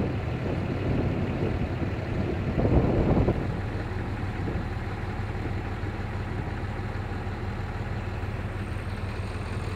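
A vehicle engine idling steadily as a low, even hum. Gusts of wind buffet the microphone over the first three seconds or so.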